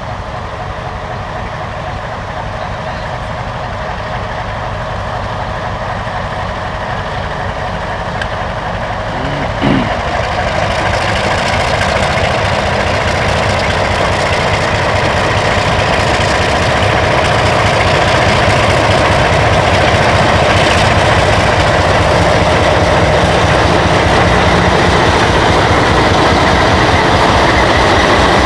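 ALCo DL500S diesel-electric locomotive engine running under load as it draws a hopper train out, growing steadily louder as it comes near. A short rising tone sounds about ten seconds in.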